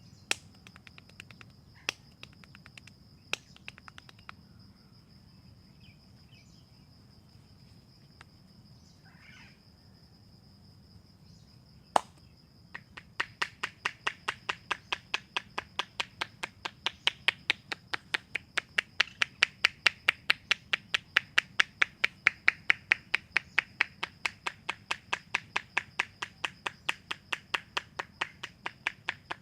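Hands rapidly tapping and slapping on a head during an Indian head massage, a fast even rhythm of about four sharp pats a second that starts about thirteen seconds in, after a few scattered clicks and one loud snap. A steady high-pitched insect chirring runs behind it.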